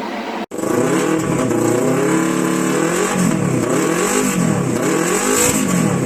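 Yamaha R25's parallel-twin four-stroke engine being revved, its pitch rising and falling several times after a brief dropout in the sound about half a second in.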